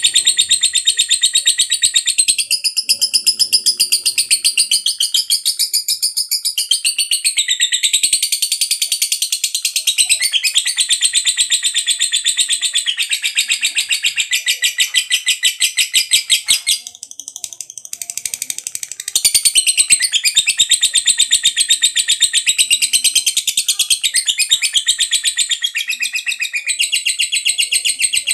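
Lovebird singing 'ngekek panjang': a long, rapid chattering trill of shrill, evenly repeated notes. It breaks off for about two seconds a little past the middle, then resumes.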